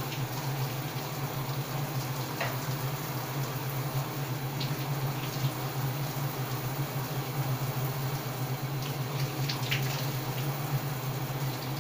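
Water running steadily in a continuous rush over a low steady hum, with a few faint splashes.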